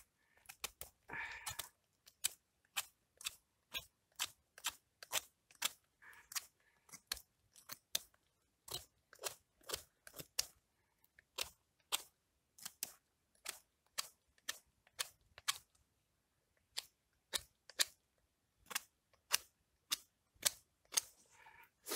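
Knife whittling a wooden stake: short, sharp shaving strokes, about two a second, as the blade cuts into the wood.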